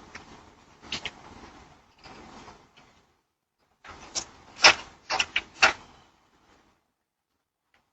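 Sharp impacts: a couple of light knocks about a second in, then after a short dead gap a quick run of about five loud bangs within two seconds.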